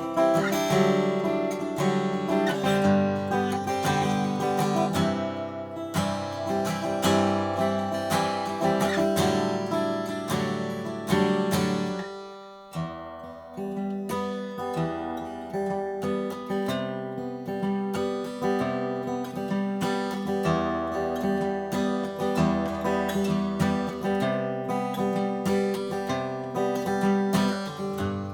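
A 2016 Martin D-1 Authentic 1931, a 12-fret mahogany dreadnought acoustic guitar, playing chords continuously, with a brief drop in level about halfway through before the playing picks up again.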